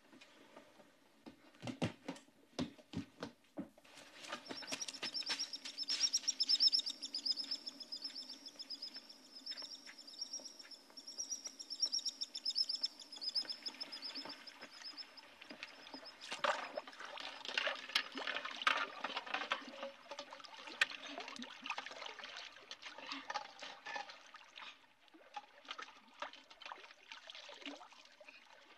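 Small waves lapping and splashing against seashore boulders, with a bird's high warbling song running through the first half.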